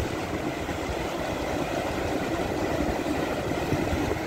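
Sea surf washing up the beach, mixed with wind buffeting the microphone as a steady, uneven low rumble.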